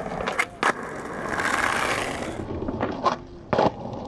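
Skateboard rolling on a running-track surface, with four sharp clacks of the board in two pairs, one pair about half a second in and the other after three seconds, as the back foot scoops the tail to spin the deck in shove-it practice.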